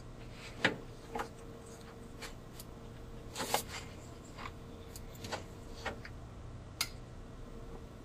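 Plastic wiring-harness plug being worked by hand onto the terminals of a Maytag washing machine timer: scattered light clicks and knocks of plastic against the timer's sheet-metal case, the sharpest about half a second in, midway, and near the end.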